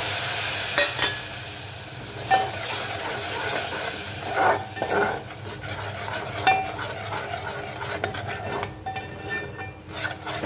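Steel ladle stirring a thick spice masala in an aluminium pot, scraping and clinking against the pot several times, over the sizzle of water just poured onto the hot masala. The sizzle is loudest in the first couple of seconds, then dies down to a low hiss.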